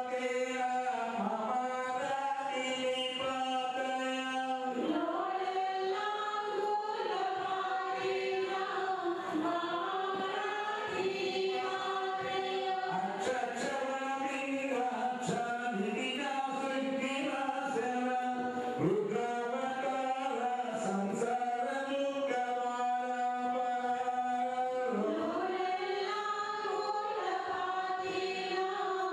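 A group of voices singing a Hindu devotional chant together, with long held notes that step to a new pitch every few seconds.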